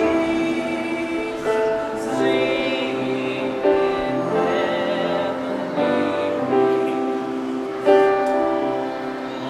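Group of voices singing a holiday song over backing music, the notes held and stepping in pitch.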